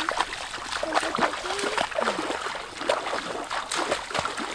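Two people wading through shallow floodwater: repeated splashing and sloshing of legs pushing through the water.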